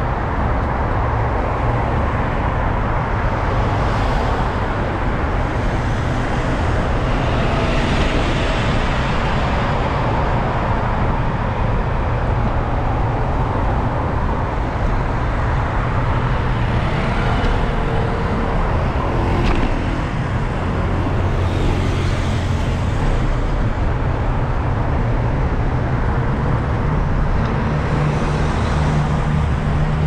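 Steady city street traffic noise heard from a moving vehicle: a continuous low rumble of engines and tyres, with several vehicles passing by.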